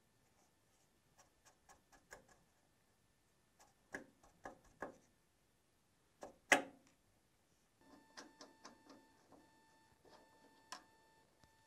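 Small metal clicks and taps as a sheet-metal clip nut and hardware are handled and pushed onto a car's steel body panel, with one sharper knock about six and a half seconds in.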